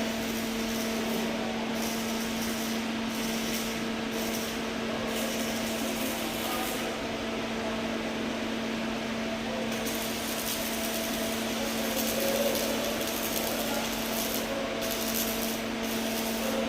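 Welding work: a steady electrical hum from the welding machine under a hissing, crackling arc that starts and stops in stretches, dropping out for a few seconds near the middle.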